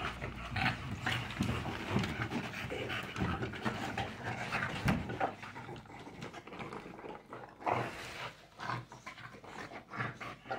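American bully dogs play-wrestling: heavy breathing and scuffling as they tussle, busier in the first half and quieter after about five seconds.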